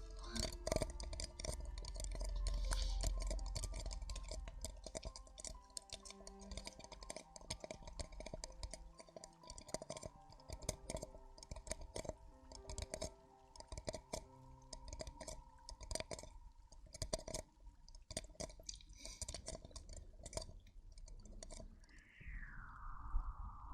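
Dense, irregular crackling and clicking right at the microphone, an ASMR trigger, over faint background music with held notes. A sweeping whoosh falls and rises near the end.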